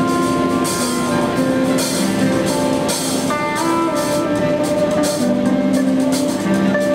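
Live rock band playing: a Squier Stratocaster electric guitar over drums, with cymbals struck steadily throughout.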